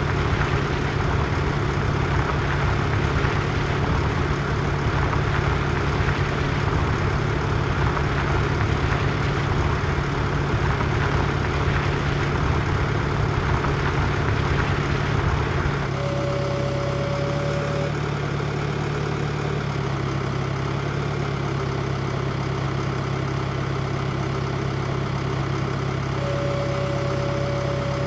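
Tractor engine running steadily under load. Just past halfway the sound changes abruptly to a smoother, thinner running with a short high whine that comes twice.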